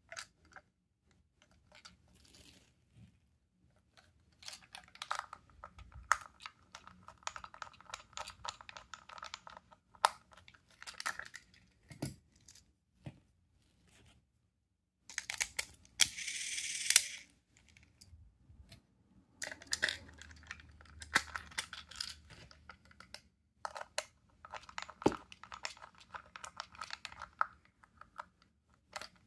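Hard plastic parts of a Plarail toy train car being handled and taken apart, with clicks, knocks and rattling scrapes. About sixteen seconds in there is a louder rasping rush lasting a second or two. Near the end a screwdriver works at the motor chassis.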